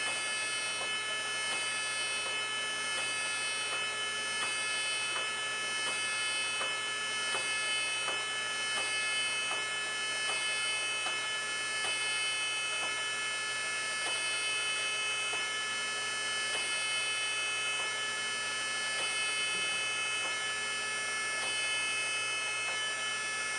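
Chevalier FSG-2A818 hydraulic surface grinder running: a steady high-pitched electric whine and hum, with faint light ticks recurring every second or so.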